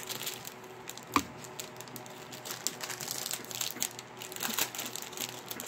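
Plastic packaging crinkling and rustling as it is handled and opened by hand, with irregular small clicks and one sharp click about a second in.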